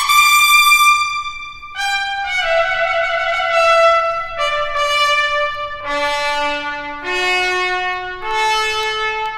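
Solo trumpet playing a slow phrase of long held notes, each lasting one to two seconds, stepping down in pitch and then climbing back up over the last three notes.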